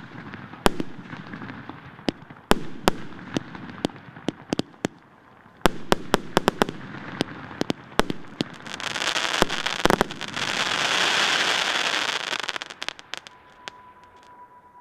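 A 54-shot, 1.3-inch firework cake firing. Sharp bangs come at irregular intervals, some in quick clusters, then a dense, loud rush of noise lasts about four seconds before a few last bangs near the end.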